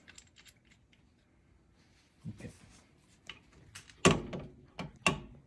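Two sharp hammer blows on a seal driver about a second apart, each with a short metallic ring, knocking a new seal into its bore, after a few faint knocks.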